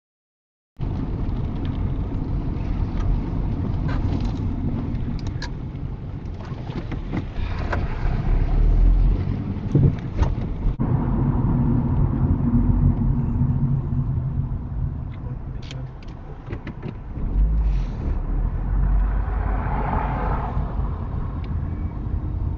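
Engine and tyre rumble of a car driving, heard from inside the cabin, with a few light clicks and knocks. It starts after a short silence, and the sound changes abruptly about halfway through.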